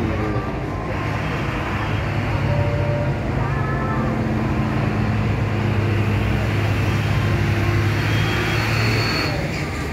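Steady low drone of heavy diesel engines running, with an even rushing noise over it.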